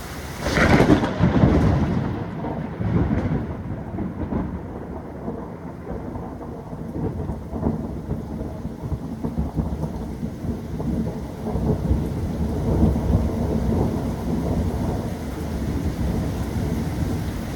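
Thunderstorm: a clap of thunder about half a second in that rolls into long low rumbles, swelling again a few seconds later and once more past the middle, over steady rain.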